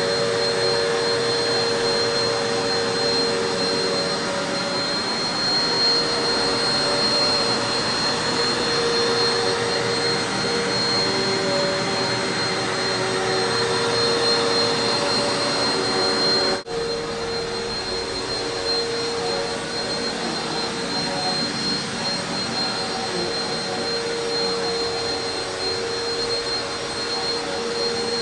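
Eureka PowerSpeed Pro Swivel Plus (NEU192A) bagless upright vacuum cleaner running steadily, with a steady high-pitched motor whine over the rush of air. The sound briefly drops out about two-thirds of the way through, then carries on.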